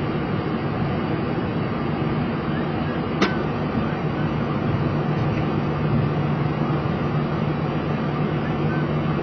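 Steady cockpit noise of a Boeing 737 taxiing on idling engines, with a constant low hum. A single sharp click sounds about three seconds in.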